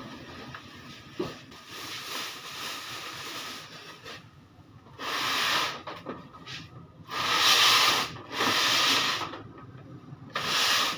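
Unboxing noise: a cardboard carton and its packing scraping and rubbing against a plastic room air cooler as the carton is lifted off. It comes as several rough rubbing bursts of about a second each, the loudest between about seven and nine seconds in.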